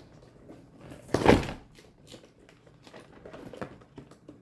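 A single loud thump about a second in, among light handling clicks and knocks.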